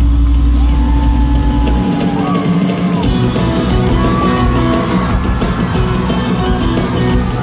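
Rock band playing live in a large hall, heard from the crowd: a held low bass drone with fans whooping over it cuts off about two seconds in, and a second later the full band crashes in with drums, cymbals and guitars.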